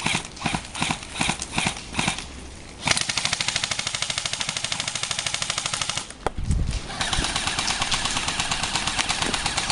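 Airsoft rifles firing: separate shots about three a second, then rapid full-auto strings from about three seconds in, a break with a low thump just after six seconds, and steady full-auto fire again from about seven seconds on.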